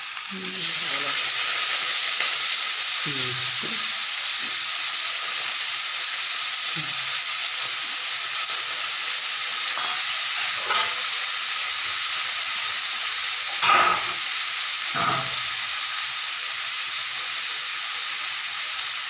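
Diced potatoes sizzling in hot oil in an aluminium kadai on a gas stove. The sizzle jumps up about half a second in as the potatoes hit the oil, then runs on steadily, with a brief louder knock about two-thirds through.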